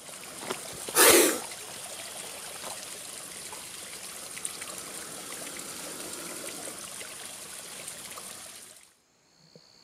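Steady rushing noise like a running stream. A short, loud burst of noise comes about a second in. The water noise fades out about a second before the end.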